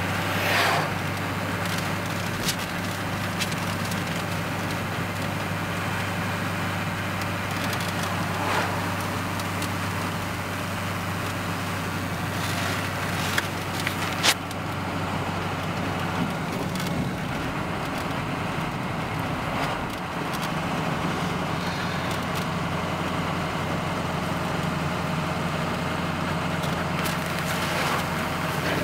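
Car engine hum and road noise heard from inside the cabin while driving, steady, with the engine note shifting about halfway through and a few short knocks or rattles.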